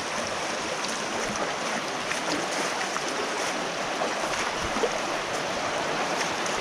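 Shallow creek water rushing steadily over rocks, a continuous even rush with a few faint small splashes.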